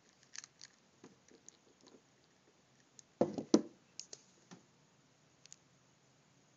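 Handling noises of a plastic action figure and the camera: scattered light clicks and taps, with a louder cluster of knocks about three seconds in and a few ticks after.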